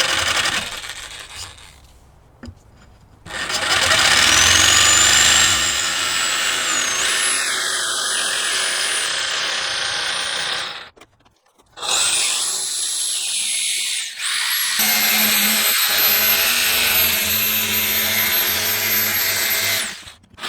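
Jigsaw with a fine-tooth blade cutting out a circular plug. Its motor whine rises as it speeds up, and it stops and starts again a few times.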